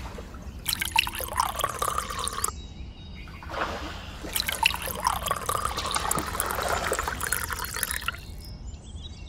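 Water poured from small plastic containers into a shallow miniature pond, splashing and trickling in two pours: a short one about a second in, then a longer one from about three and a half seconds to eight.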